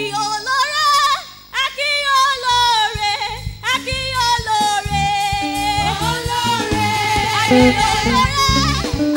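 Live gospel praise singing: a lead voice sings long, bending notes over an instrumental accompaniment with a pulsing bass line.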